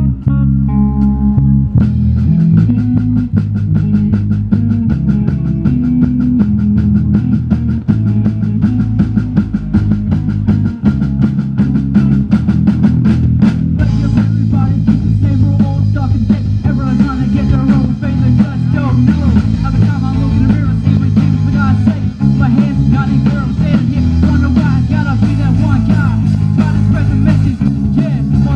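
Live amplified rock music from a small band: electric guitars and bass over a drum kit. About halfway through a rapper's voice comes in over the band.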